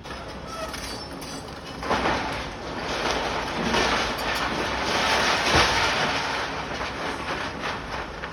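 Heavy machinery working on a construction site: a loud, rough mechanical noise that rises sharply about two seconds in, with irregular knocks through it.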